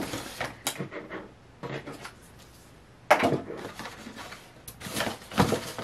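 Cardboard doll box being handled: a sharp tap at the start, scraping and rubbing of the cardboard, and a few knocks near the end as tape on the back of the box is picked at.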